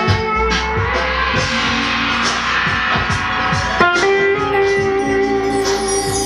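Live instrumental music led by an amplified steel guitar playing long sustained notes. The notes move to new pitches about a second in and again near four seconds.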